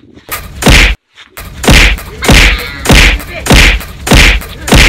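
Loud whacks of blows landing on a person lying on the ground, seven hits in quick succession about every half second after a short pause near the start.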